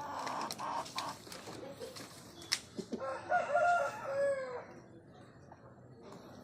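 Aseel rooster crowing once, a call of about a second and a half that starts about three seconds in and falls away at the end. Scratchy noise and a few sharp clicks come before it.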